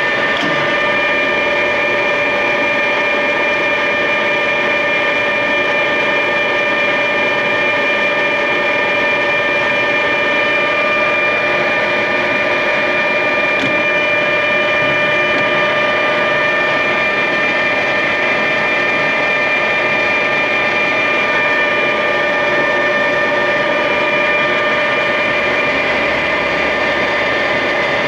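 1968 Clausing Colchester 8050 geared-head engine lathe running under power: a steady mechanical whir with several high, whining tones held at an even pitch.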